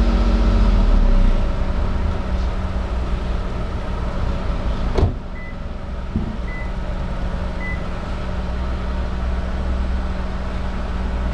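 Toyota 2SZ-FE 1.3-litre four-cylinder engine heard at the exhaust, just after a WAKO'S RECS carbon-cleaning treatment: its revs fall back in the first second or so, then it idles steadily. A sharp click about five seconds in.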